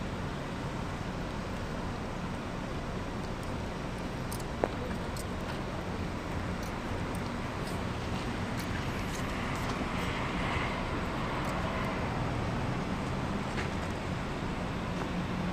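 Steady outdoor street background noise, a low rumble of distant road traffic, with one sharp click about four and a half seconds in.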